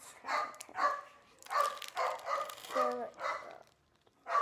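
A dog barking repeatedly, about two barks a second, pausing briefly near the end.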